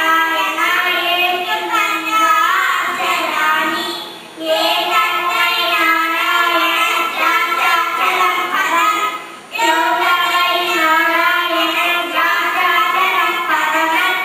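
A small group of young girls singing together into two hand-held microphones, in sung phrases with short breaks about four and nine and a half seconds in.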